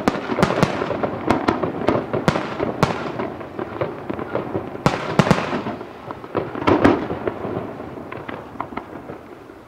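Aerial firework shells bursting in rapid succession, a dense run of booms and sharp cracks. A last strong cluster comes about seven seconds in, then thinning crackle fades out as the burst dies away.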